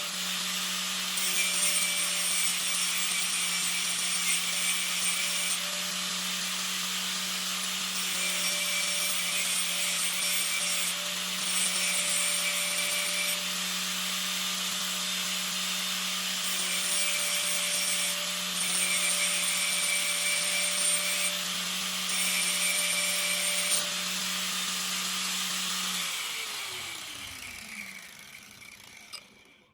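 Electric grinder motor running steadily while a steel drill bit is ground against the wheel in several separate passes, each pass bringing a harsher grinding hiss. Near the end the motor is switched off and winds down, its pitch falling as the sound fades.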